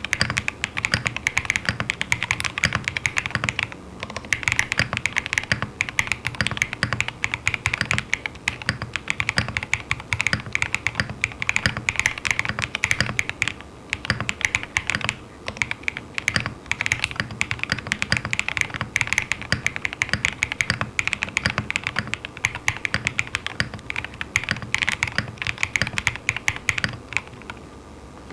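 Fast, continuous typing on a custom mechanical keyboard, a Monokei TGR Tomo with lubed JWK Peach Bloom linear switches on an aluminium top-mount plate and PBT keycaps. There is a brief pause near 4 seconds and the typing stops a little before the end. A faint steady electrical buzz from a faulty XLR cable runs underneath.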